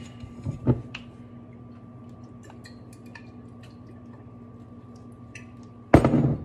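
Hot sauce dashed from a bottle over a steady electrical hum: a few light knocks in the first second, faint ticks and drips through the middle, then one loud knock near the end as the bottle is set down on the counter.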